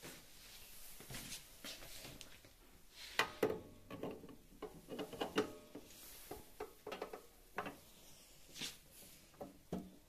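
Portafilter being fitted and twisted into the group head of a Rancilio espresso machine: a run of sharp metal clicks and knocks, starting about three seconds in and dying down after about eight seconds.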